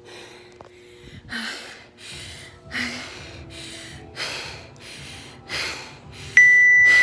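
A person panting hard, out of breath just after an all-out workout: deep gasps about every second and a half. Near the end a loud, steady electronic beep comes in and holds.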